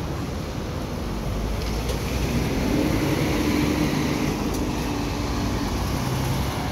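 Double-decker intercity coach driving slowly past and pulling away, its diesel engine running with a steady low hum and its tyres hissing on wet pavement. It is loudest in the middle as it passes.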